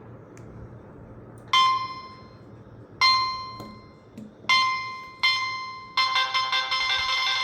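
Nokia 3220 mobile phone ringtone: four bell-like chime tones, each struck sharply and ringing out, followed about six seconds in by a fast, busy electronic melody.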